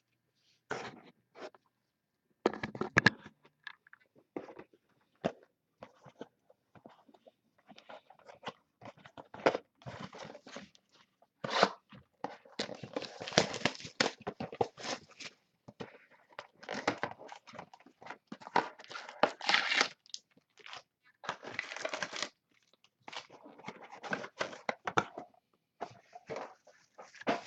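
Crinkling and tearing of plastic wrapping as a sealed box of trading cards is opened, in irregular crackly bursts that come thickest in the middle.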